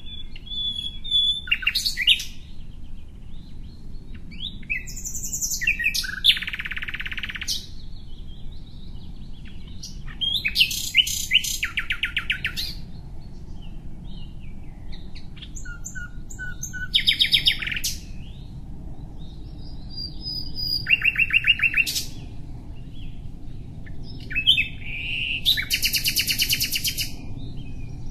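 A songbird singing: about six separate phrases of high, fast notes, each a second or two long and several ending in a rapid trill, spaced a few seconds apart over a steady low background noise.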